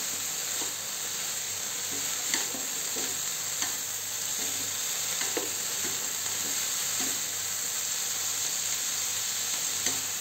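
Beef and Vietnamese celery stir-frying with garlic in a nonstick frying pan: a steady sizzle while a spatula tosses and scrapes the food, with a few light clicks against the pan.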